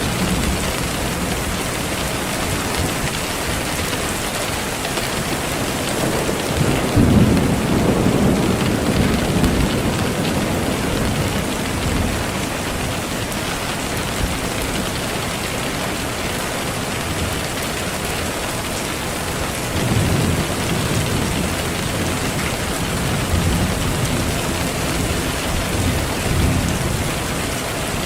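Steady rain with low rolls of thunder: the strongest roll swells up about seven seconds in and lasts a few seconds, and smaller ones come later on.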